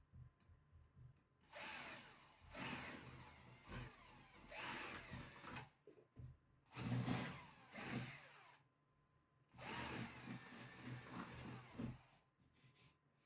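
12V cordless drill-driver drilling into a wall in several short bursts, with pauses between them. The last burst is the longest and stops near the end.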